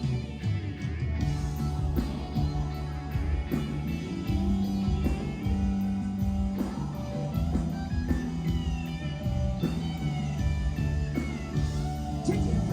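Rock band playing an instrumental passage: a lead guitar plays bending notes over sustained bass notes.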